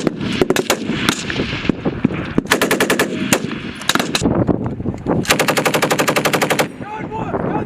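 Machine guns firing: scattered single shots, then a short automatic burst about two and a half seconds in and a longer burst of over a second about five seconds in.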